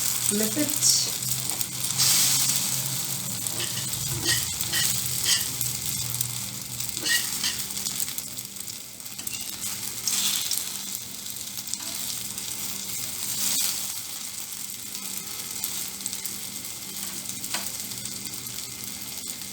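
Potato, onion and egg omelette sizzling steadily in hot oil in a pan, freshly flipped, with scattered clicks and scrapes against the pan; the sizzle is loudest in the first couple of seconds.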